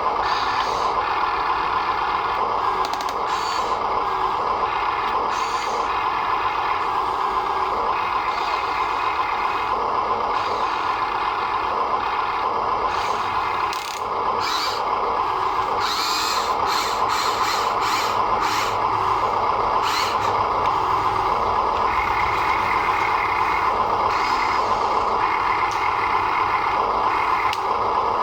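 RC toy construction trucks running: a steady whine of small electric motors and gearboxes, with scattered clicks.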